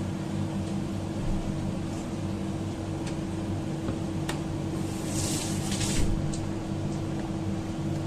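Water at a rolling boil in a large aluminium stockpot, over a steady mechanical hum. A brief hissing swell comes about five seconds in, and a few light clicks are scattered through.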